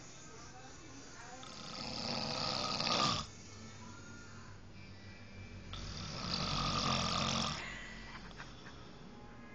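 A person snoring, likened to a lion's roar: two long snores of about two seconds each. The first builds up and stops abruptly about three seconds in, and the second follows a few seconds later.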